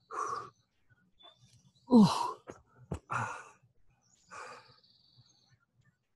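A man breathing hard from high-intensity interval exercise: about four heavy exhales, the loudest about two seconds in voiced as a sigh that falls in pitch. A short sharp click comes near three seconds.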